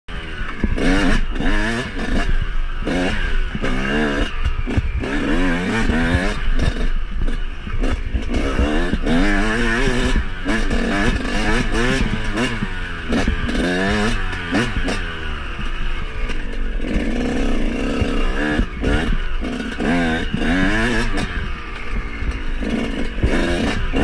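Yamaha YZ125 single-cylinder two-stroke dirt bike engine revving up and down over and over as the throttle is worked along a rough trail. Its pitch holds steady briefly about two-thirds of the way through, and there is some clatter from the bike over bumps.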